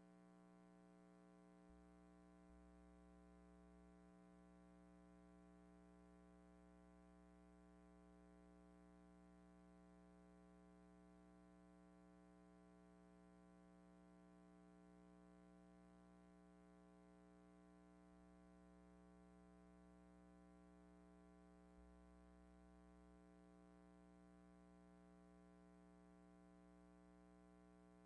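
Near silence: a silent film's blank soundtrack with only a faint steady hum.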